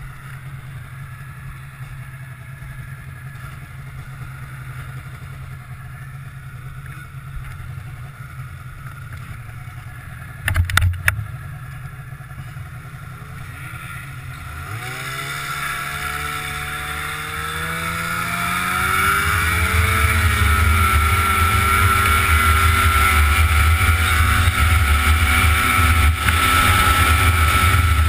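Snowmobile engine idling steadily, with a short loud burst about ten seconds in, then revving up as the sled pulls away, climbing in pitch and loudness for several seconds before settling into a loud steady run at speed with rushing wind.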